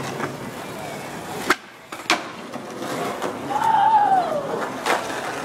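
Skateboard wheels rolling on asphalt, with a sharp pop and then a clack on landing about half a second later, and another clack near the end. In the middle a loud, drawn-out sliding tone rises slightly and then falls in pitch.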